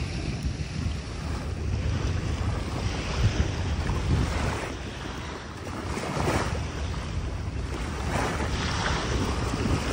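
Strong wind buffeting the microphone, with waves splashing and washing around a kayak at sea. A few louder surges of splashing come through, the strongest about six seconds in.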